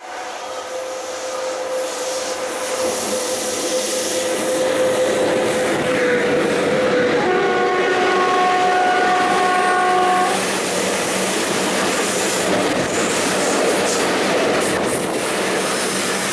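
Freight train of open-top gondola wagons rolling past close alongside a moving passenger train, with steady rumble and rattle of wheels and cars. A single high note is held for about the first seven seconds and dips slightly in pitch. It is followed by a several-note train horn blast of about three seconds that cuts off about ten seconds in.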